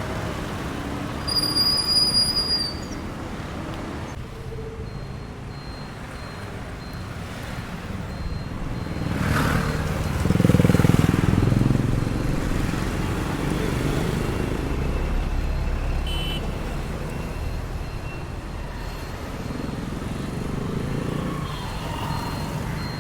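Road traffic: a steady low rumble of passing vehicles, with one passing close and loud about ten seconds in. A brief high-pitched squeal sounds near the start.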